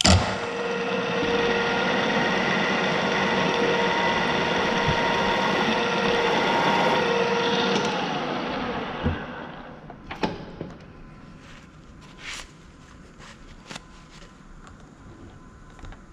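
Radial drill press cutting into a metal plate: a loud steady whir with a ringing tone through it that starts suddenly and dies away about eight to ten seconds in. Then a few short metallic clicks and knocks.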